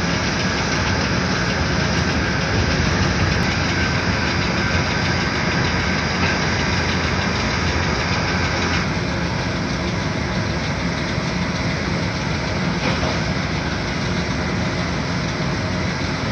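Steady rumble of engines running, with an abrupt change in the sound about nine seconds in.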